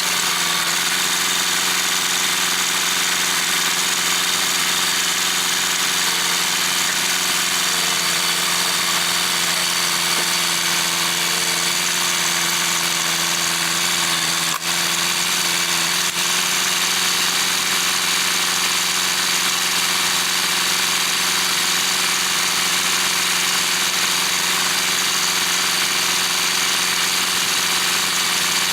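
A machine running steadily at constant speed: an even, droning hum with a hiss over it, and a single click partway through.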